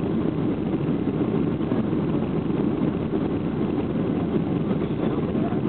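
Steady rumble of a jet airliner heard from inside the passenger cabin: engine and airflow noise, even and unbroken.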